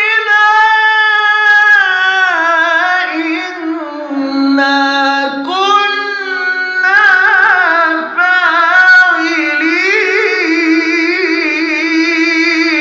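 A man's voice in melodic Quran recitation (tilawat), drawing out the word "علينا" in one long, ornamented phrase with wavering pitch that climbs higher in the second half.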